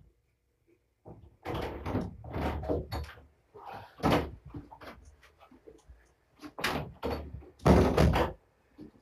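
A run of clunks, knocks and rattles as a person comes into the room and handles a plastic pet carrier, starting about a second in and coming in clusters, with the loudest clunks near the end.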